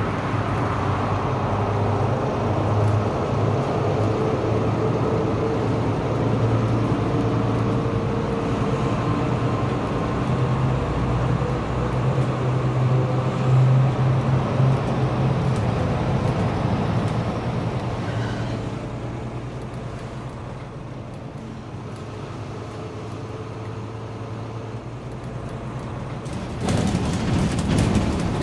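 Moving bus heard from inside: the engine's steady low hum with road noise. It eases off for several seconds, then turns suddenly louder and rattlier a couple of seconds before the end.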